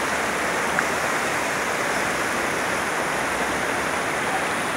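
A rocky river rushing steadily over stones and through small rapids.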